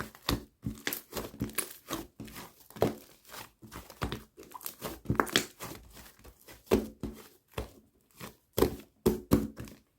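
Irregular crinkling and rustling in many short bursts.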